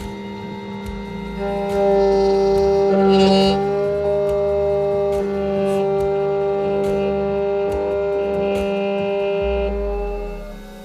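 Background music: a long, steady held chord with a light regular beat.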